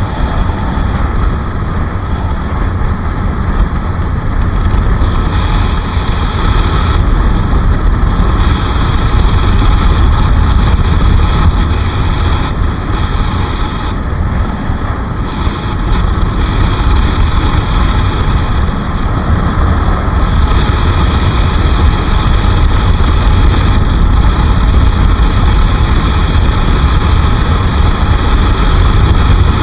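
Bajaj Pulsar RS 200 motorcycle under way, its single-cylinder engine running steadily beneath heavy wind rumble on the microphone.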